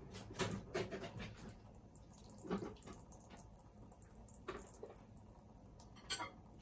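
Scattered light knocks and clatters of kitchen utensils being handled, about seven over a few seconds. A low steady hum cuts off right at the start.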